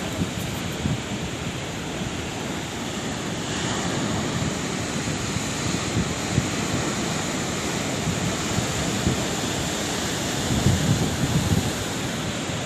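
Sea waves washing onto a shore: a steady rushing hiss that swells a little about three and a half seconds in, with heavier low rumbling of breaking surf near the end.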